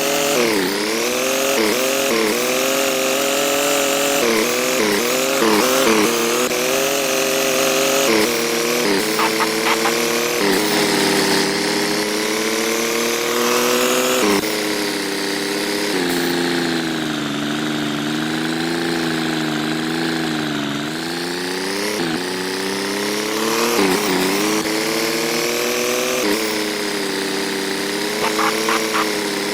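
An engine running under varying throttle, its pitch climbing and falling steadily, with several quick drops and recoveries in the first few seconds and a slow sag around the middle.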